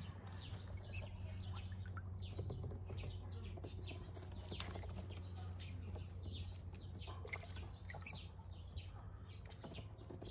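Birds chirping: many short, high peeps scattered throughout, over a steady low hum.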